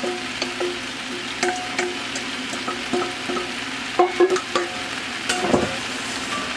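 Noodles and vegetables sizzling in a large aluminium pot while a wooden spoon knocks and scrapes noodles out of a metal bowl, each knock ringing briefly on the metal. A heavier thump comes about five and a half seconds in.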